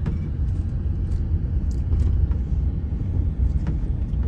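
Steady low rumble of a Ford Transit van's engine and road noise inside the cab as it rolls slowly with a travel trailer in tow, with a few faint clicks.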